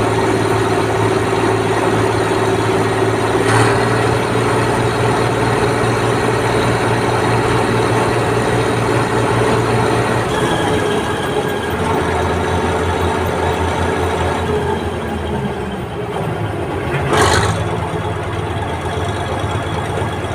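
Bizon combine harvester's SW400 six-cylinder diesel engine running steadily, then settling to a lower speed about ten seconds in. There is a short knock about three and a half seconds in and a louder one near the end.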